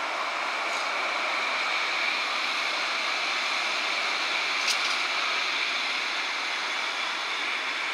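CAT Urbos 3 tram passing, a steady hiss of wheels rolling on rail that swells slightly in the middle, with one sharp click about five seconds in.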